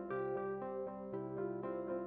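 Background music: a soft, ambient keyboard tune with notes changing every few tenths of a second.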